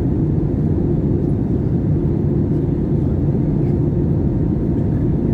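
Airbus A320 cabin noise on final approach: a steady, low rumble of engines and airflow with a faint constant hum, unchanging throughout.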